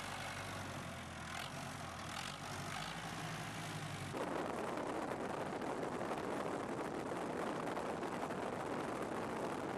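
Farm tractor engine running steadily while pulling a plough. About four seconds in it cuts off sharply and a louder, steady rushing noise with no clear tone takes over.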